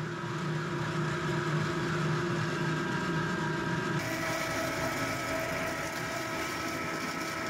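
Ring-die pellet mill running with a steady mechanical hum made of several steady tones, pressing a fir wood chip and coffee grounds mix into pellets. About four seconds in the hum changes abruptly to a brighter, higher set of tones.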